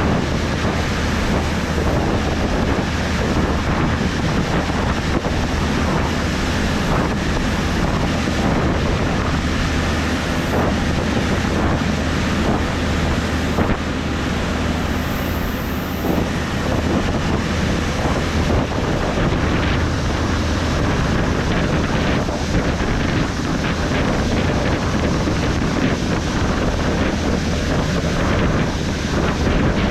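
John Deere S790 combine running while harvesting: a steady rushing machinery noise over a constant low engine hum.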